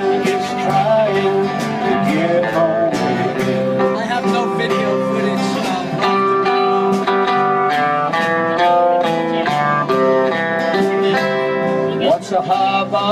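Live acoustic country band playing between sung lines: strummed acoustic guitars with a melody line moving over them.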